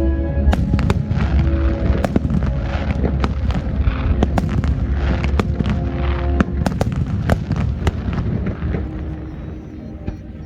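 Fireworks display: a rapid series of shell bursts and sharp bangs with crackling, over the show's music and a heavy low rumble, thinning out near the end.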